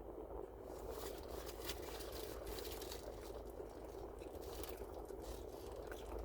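Eating sounds: chewing, with scattered small crackles and clicks like handling a wrapper, over a steady low background hum.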